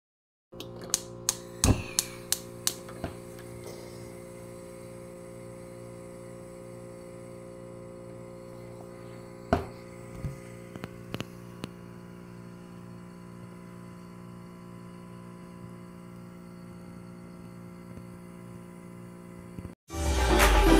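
Gas stove burner's igniter clicking about seven times in quick succession, then one louder click followed by a few lighter ones as the burner is lit, over a steady hum. Music starts just before the end.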